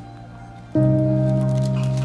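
Background music: quiet at first, then sustained notes of a chord come in suddenly about three-quarters of a second in and hold steady.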